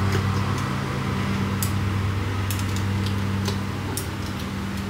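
Steady low hum of a running kitchen appliance, with a few light clicks and taps of a debubbling stick against the glass of filled canning jars as it is run down their sides.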